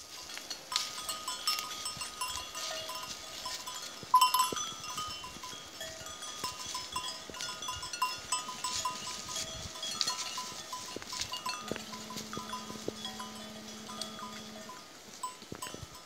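Livestock bells on a grazing herd clinking irregularly, one clank louder about four seconds in. A steady low drone joins for about three seconds near the end.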